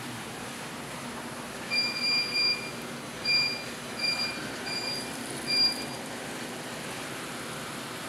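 Arzum Okka Turkish coffee machine's electronic beeper sounding a run of about six short, high beeps over a few seconds as it is powered up for testing, over steady background noise.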